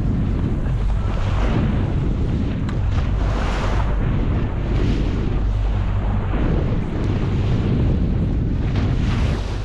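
Steady wind buffeting the microphone over the rush of a boat running on open water.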